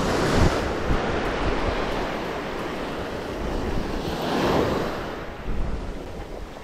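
Ocean surf breaking and washing up over the sand at the water's edge, swelling as a wave comes in about four seconds in.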